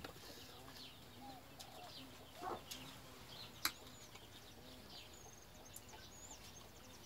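Faint birdsong: low, short calls repeating throughout and quick high chirps in the second half, with one sharp click partway through.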